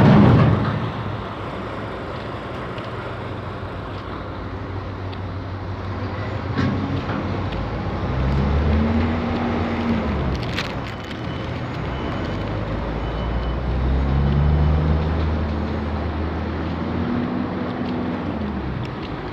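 Heavy container-truck engines running close by over a steady traffic rumble, their pitch rising and falling twice as the trucks move. A brief loud burst of noise comes right at the start.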